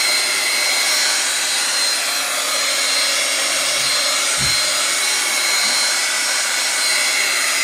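Handheld hot-air blower running steadily with a faint whine, pushing and drying wet alcohol ink on a coated book cover.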